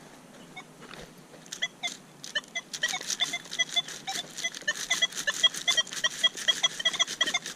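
Metal detector audio: a dense run of short, high-pitched beeps and clicks that starts about three seconds in and repeats several times a second.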